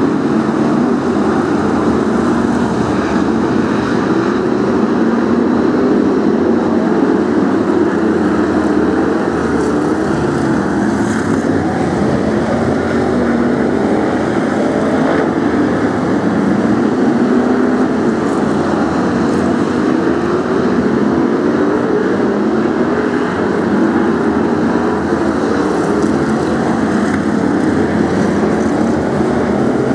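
A pack of BriSCA F1 stock cars racing, their V8 engines running together and rising and falling in pitch over and over as the cars go through the bends.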